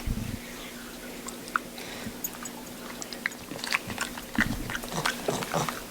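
Close-up chewing of crunchy food: irregular crunches, sparse at first and coming thicker in the second half, over a faint steady hum.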